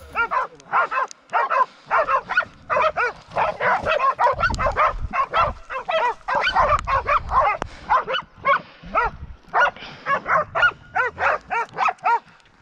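Pig-hunting dogs barking rapidly and continuously, about three barks a second, the steady barking of dogs bailing a boar.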